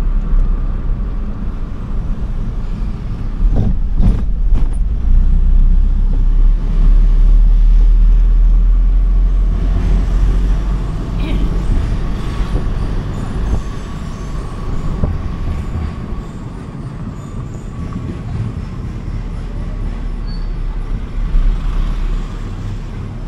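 Vehicle being driven: a steady low rumble of engine and road noise, heard from inside the cabin with the side window down, with a few brief knocks about four seconds in.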